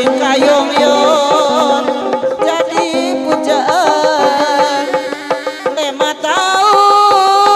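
Sundanese benjang procession music: a nasal reed-pipe melody on the terompet, held almost without a break and ornamented with wavering turns, over steady drumming.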